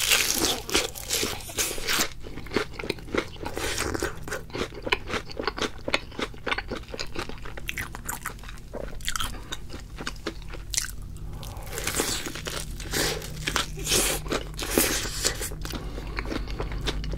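Close-miked biting and chewing of thick-battered fried chicken, the crisp crust crunching again and again. The crunches are densest in the first two seconds and again from about nine to fifteen seconds in.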